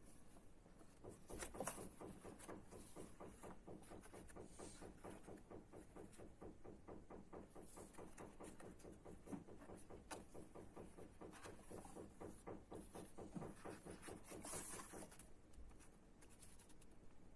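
Faint rustling and brushing of paper as the pages of a hardcover illustrated book are turned and handled, with a few louder page sweeps. Underneath runs a faint, evenly pulsing sound.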